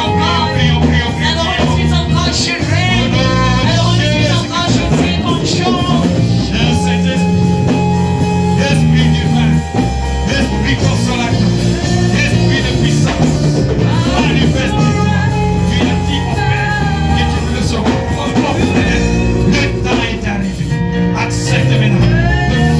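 Church worship music: a band with a steady bass line playing while voices sing over it.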